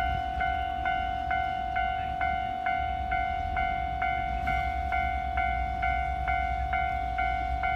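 Japanese railway level-crossing warning bell ringing in an even, repeating clang about twice a second, over a steady low rumble.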